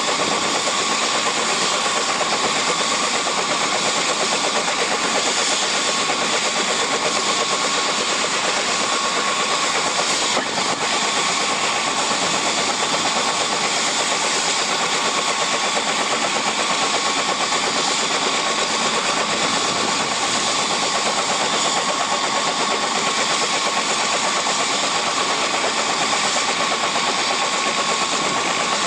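Bell 206L LongRanger helicopter running on the ground with its rotor turning: a steady turbine whine over the continuous rush and beat of the blades, unchanging throughout.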